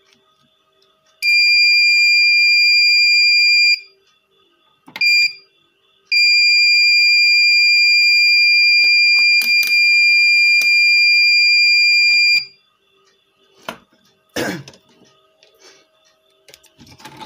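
V-Guard Prime 1050 inverter's alarm buzzer sounding on battery connection: a steady high beep of about two and a half seconds, a short blip, then a six-second tone. It sounds because the MOSFETs have been removed from the inverter board. A few clicks and a knock follow near the end.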